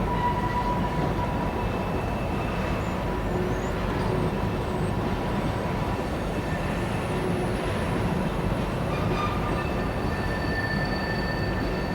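Freight train's cars rolling past with a steady rumble, and thin high wheel squeals coming and going.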